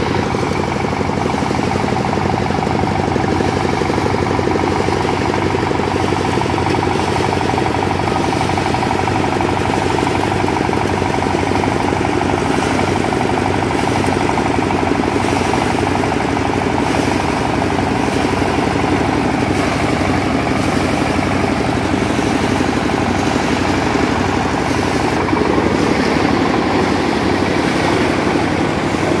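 Power-driven BRRI-model paddy thresher running steadily, its spinning threshing drum and drive making a continuous, even mechanical drone.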